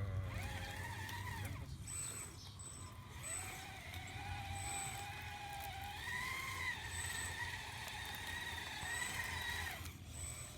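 Whine of a radio-controlled model construction machine's electric drive and hydraulic pump, its pitch stepping up and down as the controls are worked. Several brief, very high-pitched beeps come in over it.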